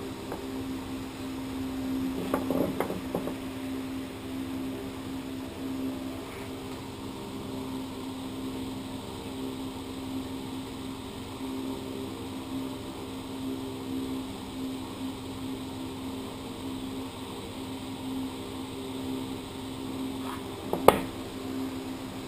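A steady low hum, with a short patch of clattering about two seconds in and one sharp click near the end, from brake pads and tools handled on a steel workbench.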